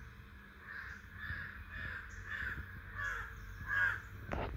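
A crow cawing, a run of about six harsh calls with the last one the loudest.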